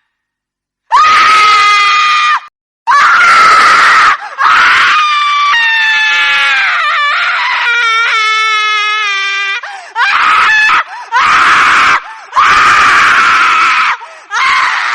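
Horror-ringtone witch's shrieking laughter: a string of loud, high-pitched screams and cackles, several sliding down in pitch, starting about a second in.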